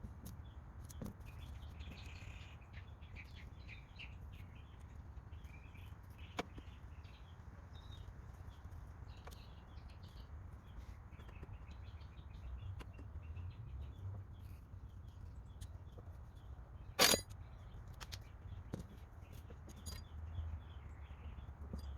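Birds chirping faintly over a low steady rumble, with a few sharp clicks, the loudest about seventeen seconds in.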